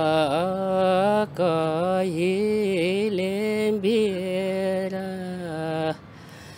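A man singing a Rukum folk song unaccompanied, in long drawn-out notes with wavering ornaments. He breaks off for a breath near the end.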